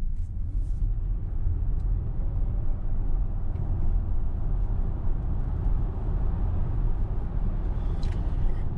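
Cabin noise of a VW ID.4 1st Max electric SUV accelerating hard at full pedal: a steady low road and tyre rumble from its winter tyres, with no engine sound.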